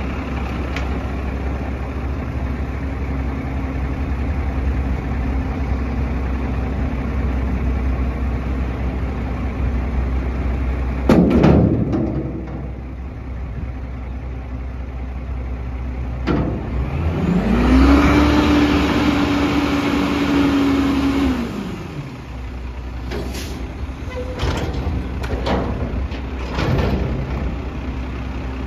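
Autocar Xpeditor front-loader garbage truck running steadily, with a loud metal clang about eleven seconds in as the emptied dumpster is set down on the street. A few seconds later the engine revs up, holds for about four seconds while the hydraulics lift the forks back over the cab, then drops back, followed by a few short knocks.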